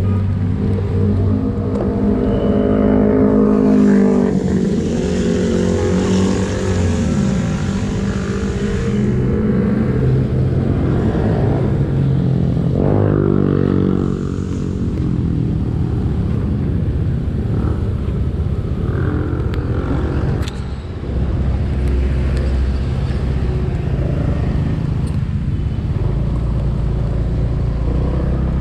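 Automatic scooter's engine running while riding in traffic, its pitch rising and falling with the throttle, over wind and road noise. A burst of hiss sits over it from about four to nine seconds in.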